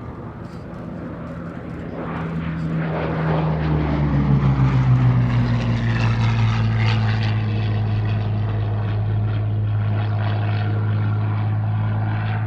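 Hawker Sea Hurricane's Rolls-Royce Merlin V12 engine growing louder as the fighter approaches, its pitch dropping as it passes about three to four seconds in, then a steady drone.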